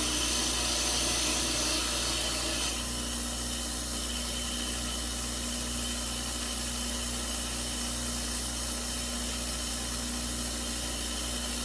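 A machine running steadily with a hum and a hiss; the hiss drops about three seconds in.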